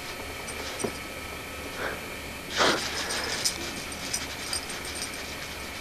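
Steady hiss of an old camcorder recording, with a few faint ticks and one short breathy sound about two and a half seconds in.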